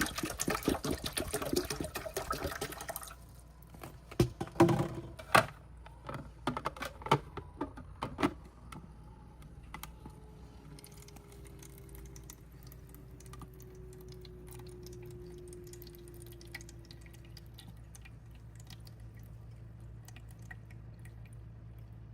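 Water pouring into a cat water fountain's tank for about three seconds, then a run of sharp plastic clicks and knocks as the fountain's parts are fitted together. After that a faint steady hum with light trickling: the fountain's small pump running.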